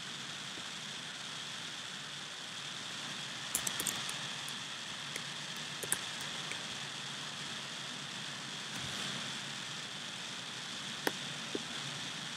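Steady background hiss of a desktop microphone recording, with a few soft clicks from a computer mouse and keyboard: a quick run of clicks about three and a half seconds in, and single clicks around six and eleven seconds.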